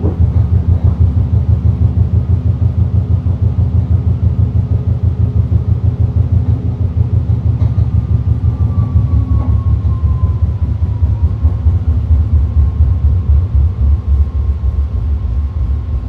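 BART Fleet of the Future train car running on the track, heard from inside the car as a loud, steady low rumble. About eight seconds in, a faint motor whine falls in pitch and then holds steady as the train slows into a station.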